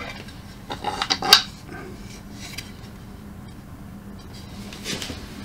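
Small metal parts clinking and clicking as they are handled: a quick cluster of light clicks about a second in, a single click a little later and a soft knock near the end. The parts are bed spacers and bolts being fitted to a wooden printer bed plate.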